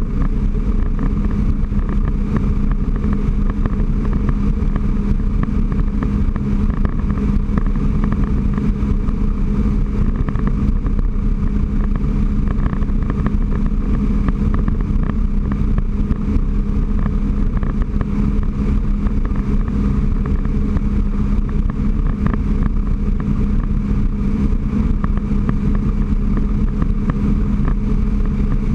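Supercharged Rotax 4-TEC engine of a 2008 Sea-Doo RXT personal watercraft running at a steady cruising throttle: a constant drone with a strong steady hum.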